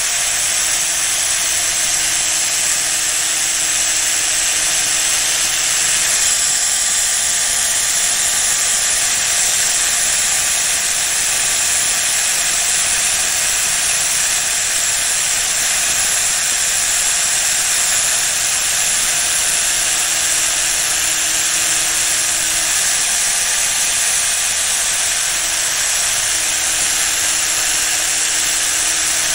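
A power tool abrading the steel blade of tailor's shears to resurface it, making a steady, even, high-pitched grinding hiss. A faint motor hum comes and goes under it.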